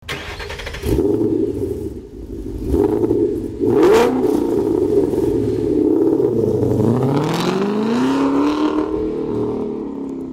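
Car engine revving, with three sharp hits about one, three and four seconds in. Past the middle the revs drop, then climb steadily before easing off near the end.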